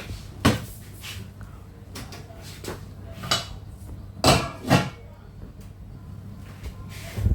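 About five sharp knocks and clatters of hard household objects being handled, spread out over a steady low hum.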